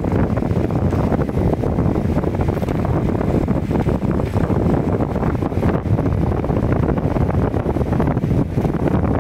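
Wind buffeting the microphone on a moving motorbike, a steady loud rush with road and engine noise underneath.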